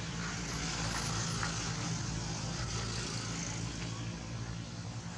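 A motor vehicle's engine running: a steady low hum under a hiss that swells over the first couple of seconds and then eases off.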